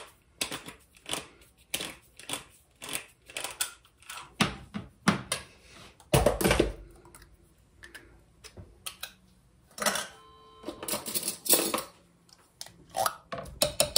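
A small metal can of tomato paste being opened and scraped out into a crock pot: a run of irregular metallic clicks, taps and scrapes, with a brief faint ringing note about ten seconds in.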